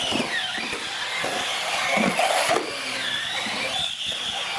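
Radio-controlled UTV-style car driving across a concrete floor, its drivetrain whining high, the pitch rising and falling with the throttle.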